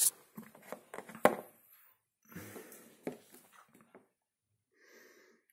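Dishwasher tablet wrapper rustling and crinkling as it is handled, with a few sharp clicks.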